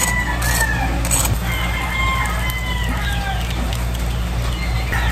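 Birds calling: several long, drawn-out calls, each falling slightly in pitch, come one after another over a steady low hum.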